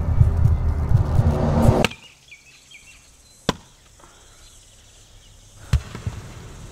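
Running stream water rushing and churning loudly. It cuts off about two seconds in, followed by two sharp axe chops into wood a couple of seconds apart, with faint bird chirps between them.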